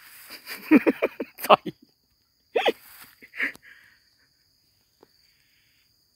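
A few short vocal sounds in the first four seconds: a quick run of about five pulses, a sharp burst, then a call that falls in pitch. Under them is a steady high-pitched insect buzz.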